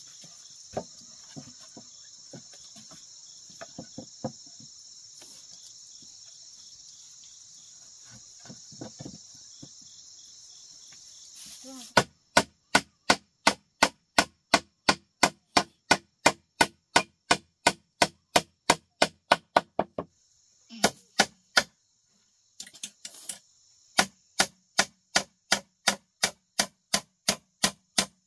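A steady high insect trill with a few faint knocks, cut off abruptly about twelve seconds in. Rapid, even chopping strikes follow, about three sharp blows a second. They pause for a few seconds with only a couple of blows around twenty seconds in, then carry on at the same pace.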